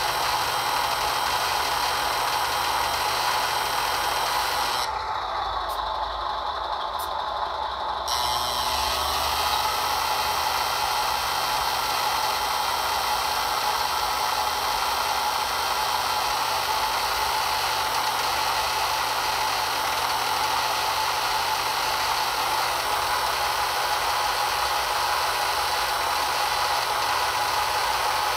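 Electric hydraulic pump of an RC truck-mounted Palfinger loader crane, whirring steadily as the crane's boom is raised and telescoped out. About five seconds in, the whine drops lower and duller for roughly three seconds, then comes back up.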